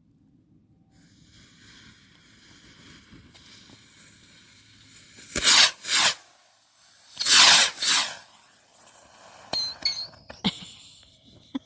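Consumer fireworks going off. A hiss builds, then comes two pairs of loud bursts a couple of seconds apart, then a few smaller pops near the end.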